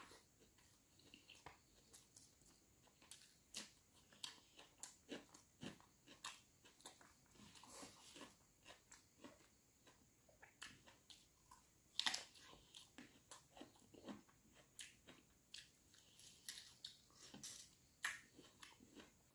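Close-up mouth sounds of a person chewing and biting rice and broiler chicken liver and gizzard: many short clicks and crunches at an uneven pace, the loudest about twelve seconds in.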